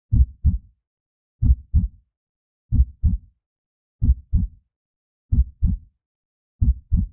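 Slow heartbeat sound effect: low lub-dub double thumps, six beats about 1.3 seconds apart, with silence between them.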